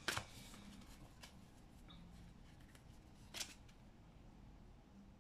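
Tarot cards being handled: a short snap right at the start and a louder one about three and a half seconds in, with a few faint ticks between, in an otherwise quiet room.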